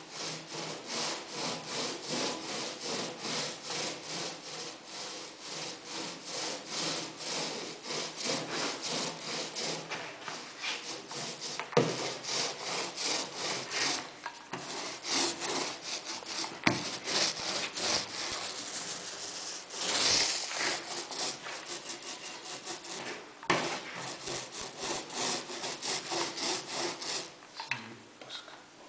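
Paint roller spreading epoxy over a plywood sheet in quick back-and-forth strokes: a rhythmic rubbing swish, about two strokes a second, with a couple of sharp knocks along the way. The rolling stops shortly before the end.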